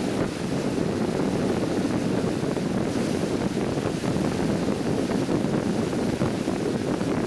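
Steady rush of wind on the microphone mixed with the SS Badger's hull wave foaming and churning as the ferry runs under way. The sound stays even, with no distinct knocks or tones.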